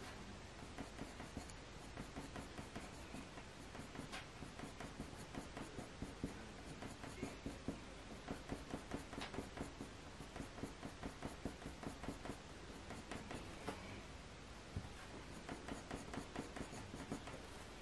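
Faber-Castell Polychromos coloured pencil scratching across hot-pressed watercolour paper in many quick, short strokes, a few each second, laying in fine fur lines. The strokes are quiet.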